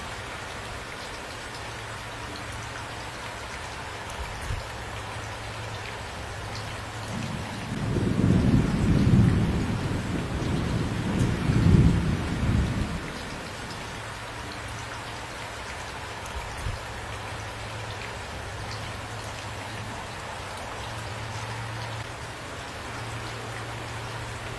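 Steady rain falling, with a low rumble of thunder that starts about a third of the way in, swells twice and dies away after about five seconds.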